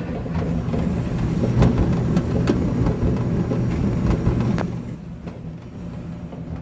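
Dryer vent cleaning vacuum running with a steady low hum, lint and debris clicking and rattling through it. It drops in level about five seconds in.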